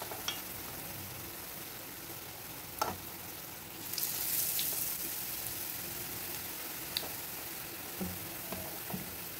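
Bread potato cheese balls deep-frying in hot oil, a steady sizzle that swells about four seconds in as they are turned with a spoon. A few light clicks sound in between.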